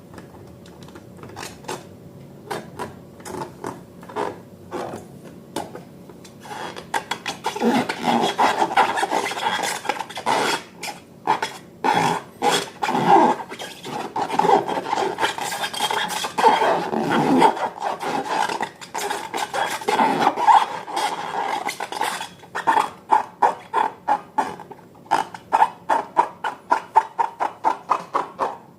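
Slime being stirred in a bowl: a utensil scrapes and clicks against the bowl. There are scattered clicks at first, a long stretch of dense scraping, and a quick run of clicks near the end.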